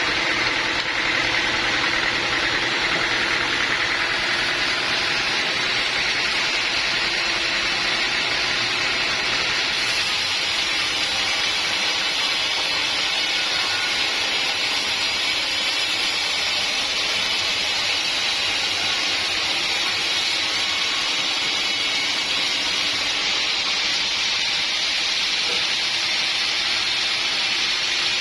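Sawmill saw cutting steadily through an acacia log, a continuous high hissing noise over the mill's running motor.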